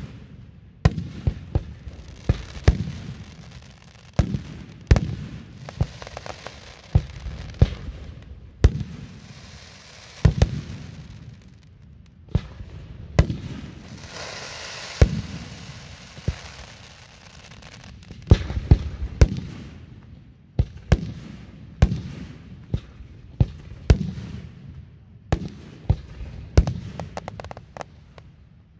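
Aerial fireworks display: shells bursting with sharp booms one after another, at times several within a second. About halfway through, a few seconds of dense crackling hiss from the bursts.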